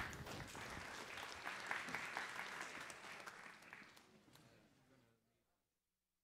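Audience applauding, a dense patter of many hands clapping that fades away about five seconds in.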